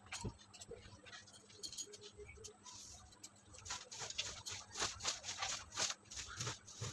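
Fabric rustling with light pats and brushing strokes as a blanket is folded and a bedsheet is smoothed flat by hand. The strokes come thickest in the second half.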